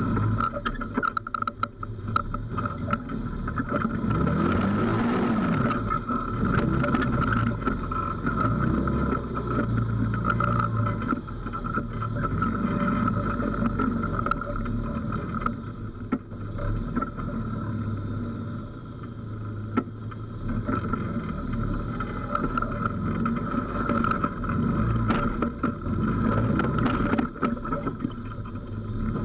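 Textron Havoc X side-by-side's engine running at crawling pace over rocks, its revs rising and falling. There are a few sharp knocks and rattles about four to six seconds in, and again near the end.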